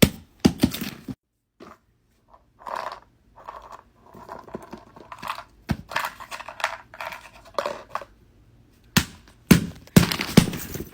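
Plastic fidget toys and packaging being handled: sharp clicks and taps, with crinkling and rustling in between.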